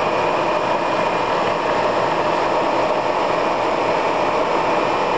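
Lagun FTV-2S vertical mill running, its spindle turning at about 2100 RPM while the Servo II CNC drives feed the table. A steady machine whir with a faint steady high whine.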